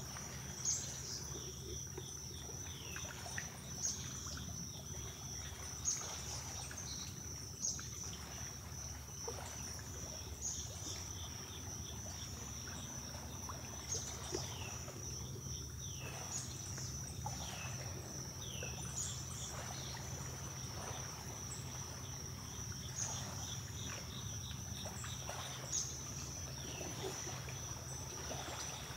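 Late-summer insects trilling steadily at a high pitch, with short, falling bird chirps scattered throughout and a few sharper, louder calls.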